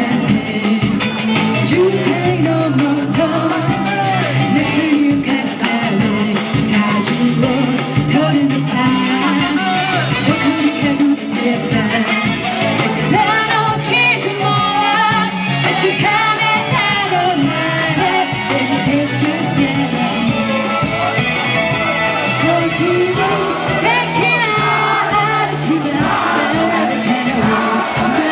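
Female vocalist singing live into a handheld microphone over pop-rock accompaniment, a continuous melodic vocal line over a steady band backing.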